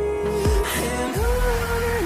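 Background pop song with a sung vocal line and a steady kick-drum beat.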